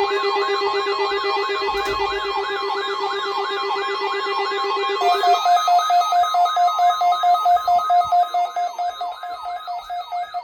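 Weather radio receivers alarming for a required weekly test, set off by the broadcast alert tones: a fast, siren-like warble over steady and pulsing beeps. About five seconds in, a low steady tone gives way to a louder pulsing beep, and the alarms fade near the end.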